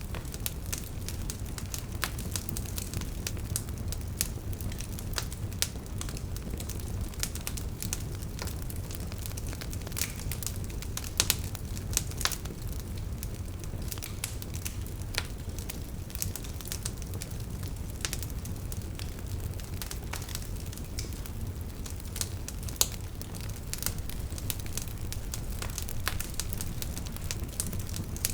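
Wood fire burning in a fireplace: logs crackling and popping with many irregular sharp snaps, a few louder ones, over a steady low rumble of flame.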